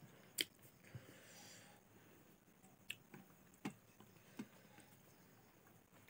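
Fingers mixing rice and boiled chicken on a plate: a faint soft squishing with about five sharp clicks of the hand against the plate, the loudest about half a second in.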